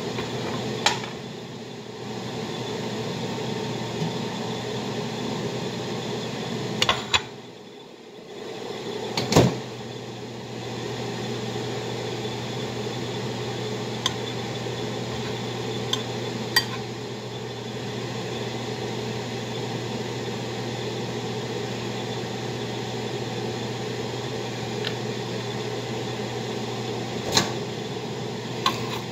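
Steady hum of a running kitchen appliance. It cuts out for a second or so about eight seconds in and starts again right after a clunk. Scattered sharp clicks and clatters of kitchen utensils and dishes run through it.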